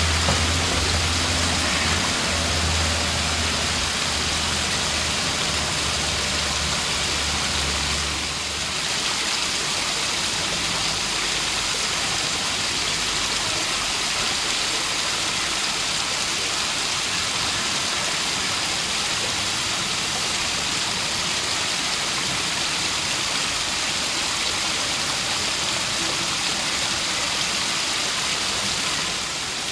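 Steady rush of water from a small waterfall pouring into a pool. A low, steady mechanical hum runs beneath it and stops about eight seconds in.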